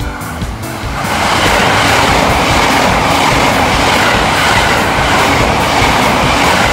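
A JR East E353 series electric limited express train runs close past a station platform. A steady loud rush of running noise builds about a second in, with the regular clack of wheels over rail joints.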